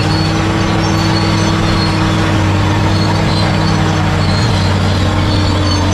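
Large bulldozer's diesel engine running steadily under load, a continuous low hum that holds the same pitch throughout.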